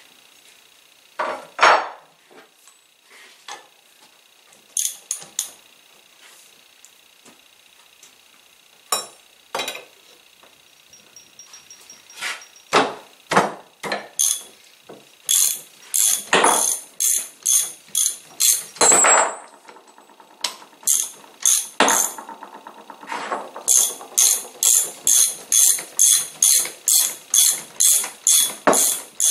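Scattered sharp metal clicks and knocks, then, about three-quarters of the way in, a steady run of sharp clicks at about two to three a second: a ratchet wrench being worked on the nuts of the cart's threaded rods.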